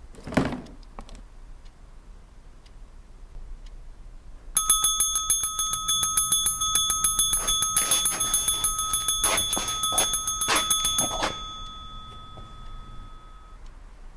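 A bell rings continuously with rapid repeated strikes for about seven seconds, stops suddenly and rings out briefly: the sound of a wall-mounted electric telephone bell. A single thud comes about half a second in.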